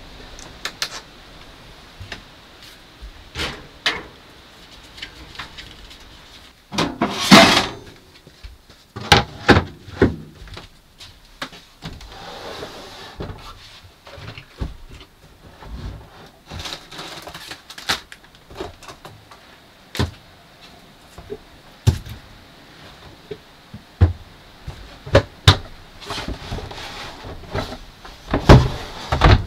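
Knocks, bumps and clatter of wooden cabinet doors and drawers being opened and shut and gear being moved, in scattered single hits with a longer, louder noise about seven seconds in.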